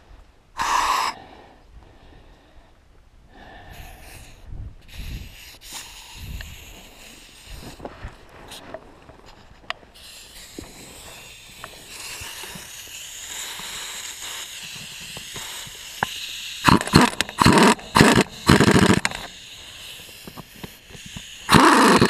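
Compressed air hissing steadily, then a pneumatic impact wrench hammering in several short bursts, with one more burst at the very end, as it runs fasteners down stiff, dry threads.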